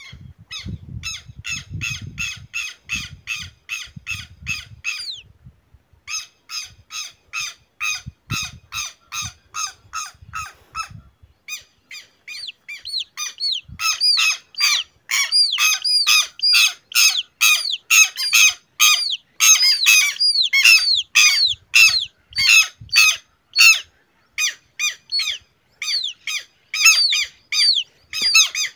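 Adult southern lapwings giving harsh, rapidly repeated alarm calls, about three a second, louder from about halfway through. These are the parents' alarm and defence calls at a chick being handled.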